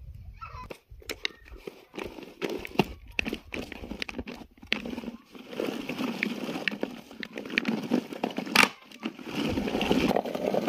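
Manual food chopper crunching tomatoes in its bowl: the blades give scattered sharp clicks at first, then dense, rapid crackling and clattering through the second half.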